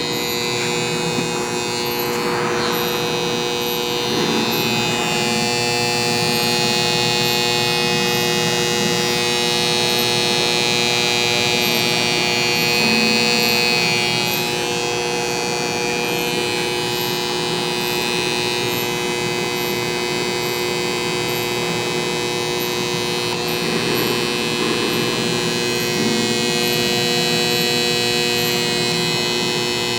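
Electrical contactors humming: a steady electrical buzz made of several fixed tones that holds unchanged.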